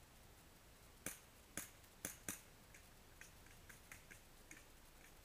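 Airsoft gunfire: four sharp snaps about half a second apart, followed by a string of fainter, higher ticks.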